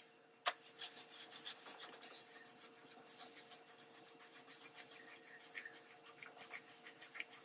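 A soft cloth dampened with alcohol-water spray scrubbing quickly back and forth over an embossed magazine image glued to a base, a scratchy rubbing of several short strokes a second that starts about half a second in. The rubbing is lifting the ink off the paper to distress the image.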